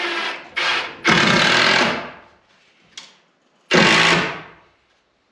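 Cordless power driver running in several short bursts, driving screws through shims into a door jamb, with a click between runs.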